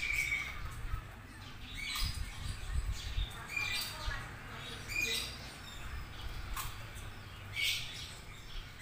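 Caged birds giving short, high chirps, one every second or two, over a low rumble.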